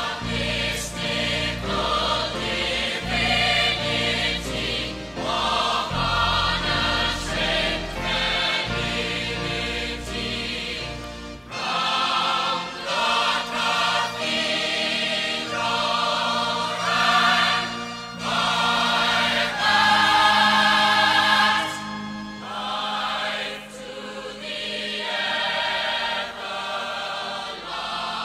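Musical-theatre ensemble singing in chorus over band accompaniment. The deep bass drops out about a third of the way through, leaving lighter accompaniment under the voices.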